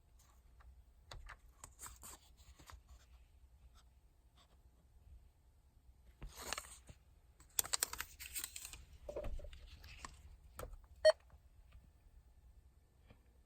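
Faint clicks and rustling of handling, busiest in the middle, then a single short electronic beep about eleven seconds in.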